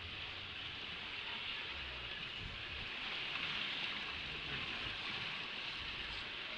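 Steady outdoor hiss with uneven low rumbling beneath it.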